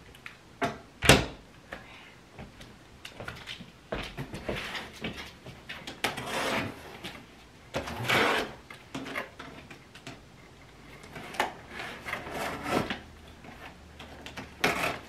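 A cardboard shipping box being handled and opened: a loud thump about a second in, then scraping and ripping as a small cutter slits the packing tape along the top of the box.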